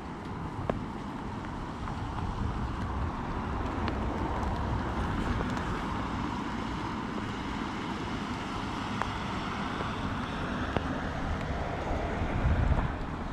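Wind buffeting the microphone in a sleety snow shower: a low rumble under a steady hiss, with a stronger gust near the end.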